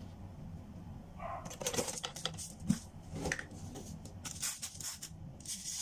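Dry rustling, scraping and light clicks of okra pods being handled and set down on a bamboo cutting board, starting about a second and a half in, with one sharp click near the middle and denser rustling near the end.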